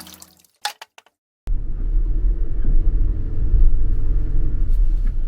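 A loud, steady low rumble starts abruptly about a second and a half in, after a few brief clicks.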